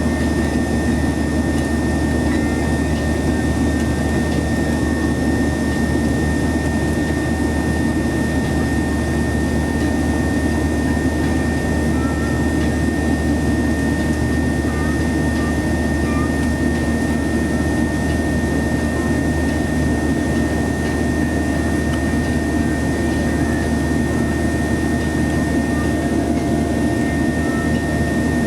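Boeing 737-800's CFM56-7B turbofan engines running steadily, heard inside the cabin as a constant rush of engine and air noise with a steady high whine over it.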